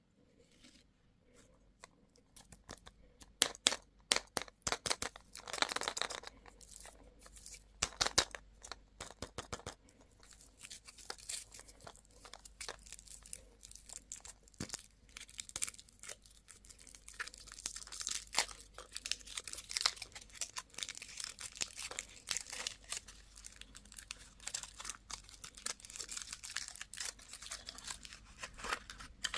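Candy wrapper being crinkled and torn open by hand: a dense, continuous crackle with sharper, louder snaps during the first ten seconds or so.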